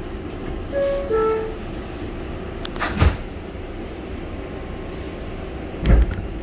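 NYC subway car doors closing, heard from inside the car: the two-note descending door chime sounds about a second in, then the doors shut with a loud bang about three seconds in and another heavy thud comes near the end, over the steady hum of the standing train.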